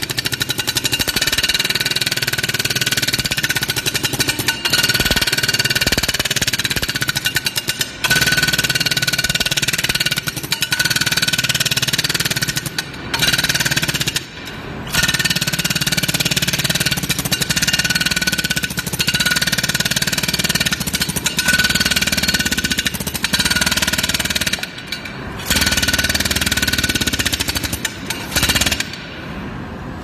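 Pneumatic pick hammering rapidly as it rams refractory castable into a blast furnace iron runner, packing it tight against the runner. The hammering breaks off briefly a few times and stops about a second before the end.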